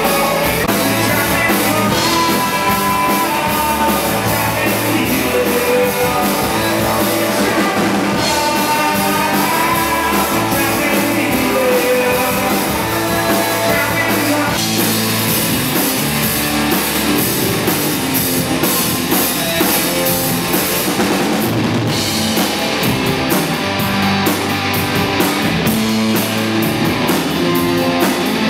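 Live rock band playing: electric guitars and bass over a drum kit. The cymbals get busier about three-quarters of the way in.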